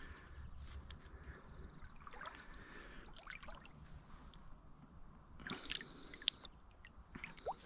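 Faint sloshing and trickling of shallow water as a hand reaches in and lifts a freshwater mussel out, with scattered small clicks and one sharper click about six seconds in.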